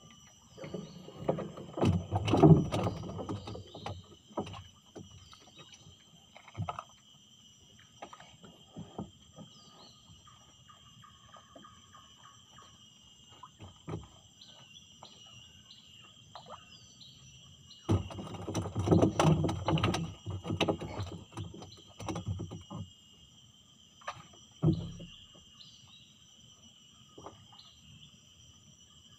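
Steady high chirring of insects in the mangroves runs throughout, with a few short bird chirps. Twice, for a few seconds each (about a second in, and again past the middle), louder knocking and water noise from the small wooden boat covers it. Single knocks on the boat fall in between.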